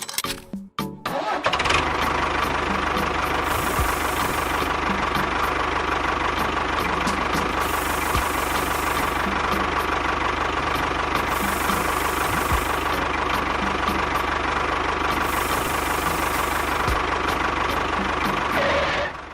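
Small electric motor of a DIY model machine running steadily with a constant high whine, switched on about a second and a half in and cut off shortly before the end.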